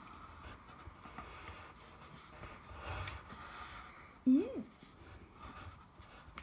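Faint scratching of pencils drawing on paper, with a short vocal sound from one of the people about four seconds in, rising then falling in pitch, the loudest moment.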